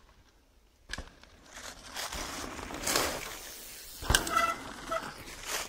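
A downhill mountain bike coming down a dirt trail and passing close, its knobby tyres rushing and crunching over dry leaves and loose dirt, louder as it nears, with a sharp knock about four seconds in.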